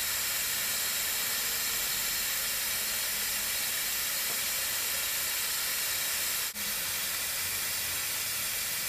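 Aerosol chain lube hissing out steadily through a straw nozzle onto a motorcycle drive chain. The spray breaks off for an instant about two-thirds of the way through, then carries on.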